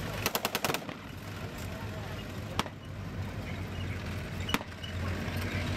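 Blank gunfire in a mock battle: a short machine-gun burst of about seven rounds near the start, then two single shots about two seconds apart, over the steady low rumble of vehicle engines.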